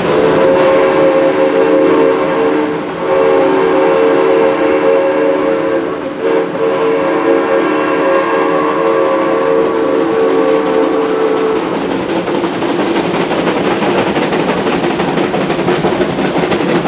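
Steam whistle of Yosemite Mountain Sugar Pine Railroad locomotive #10, a three-truck Shay, sounding a chord of several notes in three blasts, the last one long. After that the train is heard running along the track.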